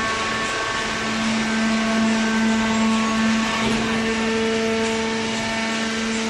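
Hydraulic cardboard baler running, its pump motor giving a steady hum with a constant pitch over mechanical noise; the hum grows stronger about a second in.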